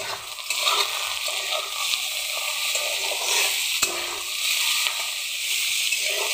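Sliced onions, garlic and chillies sizzling in hot oil in a kadai, a steady hiss, while a spatula scrapes and stirs them around the pan; one sharp tap of the spatula on the pan a little under four seconds in. The onions are being fried until they turn reddish-brown.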